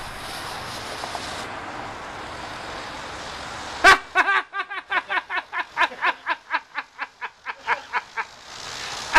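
A steady hiss from the burning pellet of a Poopy Puppy snake firework. About four seconds in, a loud burst starts a long run of high-pitched laughter, about four or five laughs a second.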